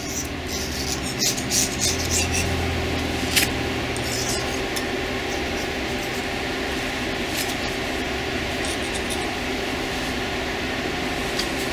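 Single-edge razor blade scraping softened head gasket residue off the cast-iron deck of an L96 6.0L LS engine block in short strokes, mostly in the first few seconds and again briefly later, over a steady background hum.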